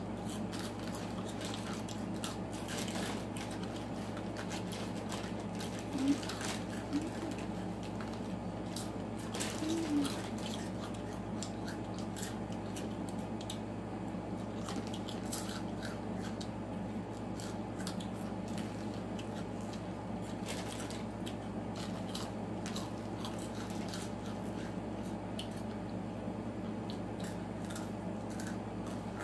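Chips being chewed and crunched, with the crinkle of a snack bag, as two people eat as fast as they can. Under it runs a steady hum, and a couple of short louder mouth noises come about six and ten seconds in.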